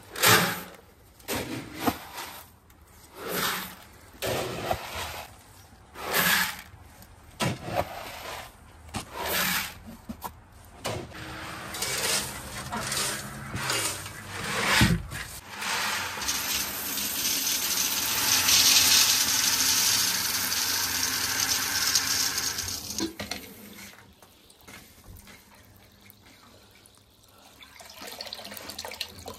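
A scoop dipping into a bucket of rabbit feed and tipping it out, a short scrape-and-rustle about once a second. This is followed by feed poured from a bucket into a feed trough, a steady hiss lasting about ten seconds. Near the end a hose starts running water into a bowl.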